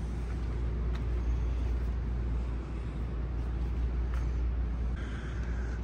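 Steady low hum and rumble of a large indoor showroom's background noise, with a faint click about a second in and another about four seconds in.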